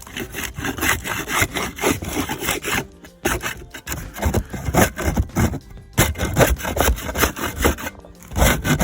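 Repeated rough scraping strokes across the RV's roof, working off or clearing the old tar-like roof coating. The strokes come in runs broken by short pauses about three, six and eight seconds in.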